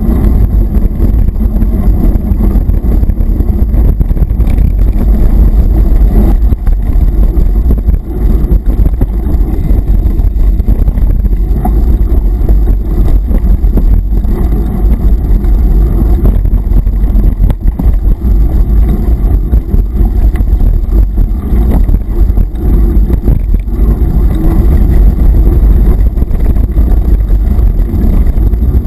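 Mountain bike riding fast over a dirt forest trail, heard through an action camera mounted on the bike: a constant loud low rumble of wind and trail vibration, with small knocks from bumps.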